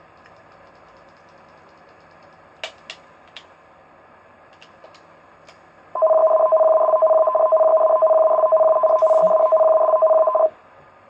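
Emergency alert broadcast attention tone: two steady pitches sounding together, held for about four and a half seconds, starting about six seconds in and cutting off suddenly. A few faint clicks come before it.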